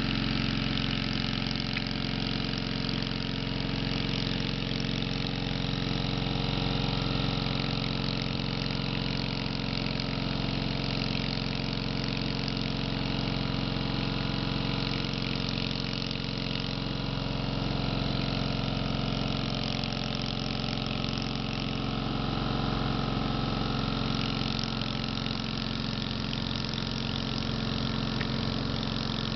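Small gasoline engine of a floating hookah dive compressor running steadily at an even speed, pumping air down the hoses to the divers.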